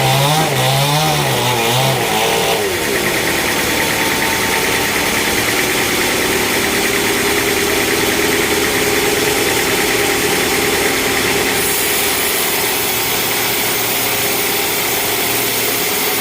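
A chainsaw's engine revving up and down for the first couple of seconds, then an engine running steadily at one speed.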